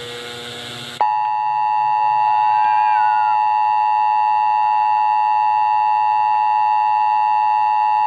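Emergency broadcast alert attention signal: a steady, unwavering electronic two-tone sound that starts abruptly about a second in and cuts off suddenly near the end. A faint low hum comes before it.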